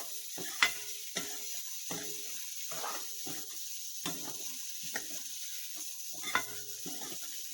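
Potato-and-bean vegetable curry sizzling in hot oil in a pan, stirred with a spatula: a steady frying hiss under scraping strokes about one to two a second, with sharper knocks of the spatula on the pan about half a second in and again near the end.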